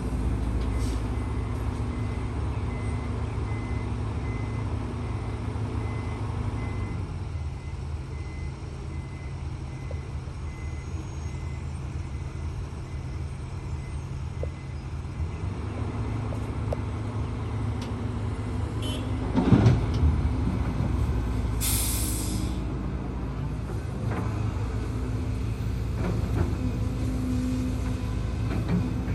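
Hidromek HMK230LC excavator's diesel engine running, its pitch dropping about seven seconds in and climbing back up at about fifteen seconds. A heavy thud comes at about twenty seconds, followed shortly by a brief hiss.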